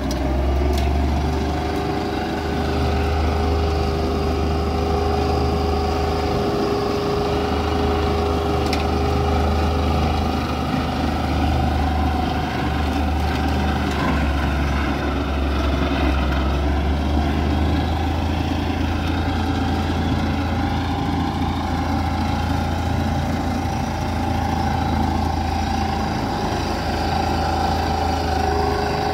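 IHC 1055 tractor's diesel engine running steadily while mulching grass. A steady whine sits over the deep engine drone throughout.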